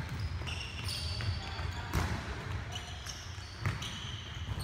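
Futsal ball being kicked and played on a wooden indoor court: a few sharp thuds, the loudest about two seconds in, with players' shoes squeaking on the floorboards.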